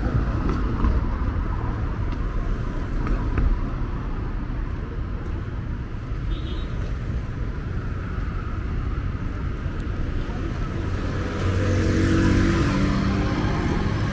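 Busy street traffic: a steady rumble of cars and motorbikes going by, with one vehicle passing close and louder about twelve seconds in.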